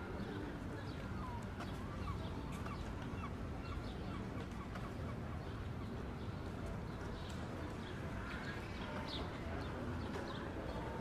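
Small birds chirping repeatedly in short calls over a steady background hum.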